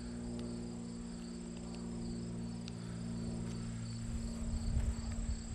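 Steady high trilling of insects in the grass, over a steady low hum. A low rumble of footsteps on the lawn builds near the end.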